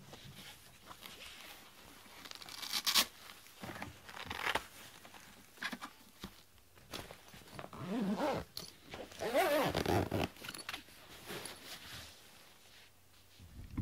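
Zipper of a padded guitar gig bag being pulled closed in several short runs, each a rasp whose pitch glides as the slider moves.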